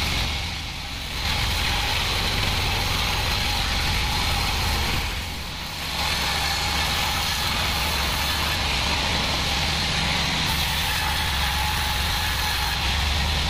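Homemade band sawmill cutting a mahogany log: a steady machine hum under the hiss of the band-saw blade in the wood. The hiss drops away briefly twice, about a second in and again around five seconds in, as the blade comes out of the cut.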